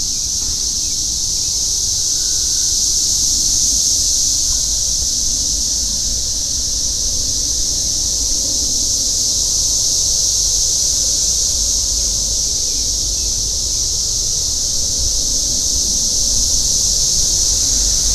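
A steady, high-pitched chorus of insects buzzing without a break, over a low rumble of wind on the microphone.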